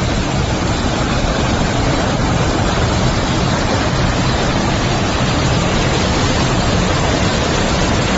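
Strong storm wind blowing, a loud steady rush of noise.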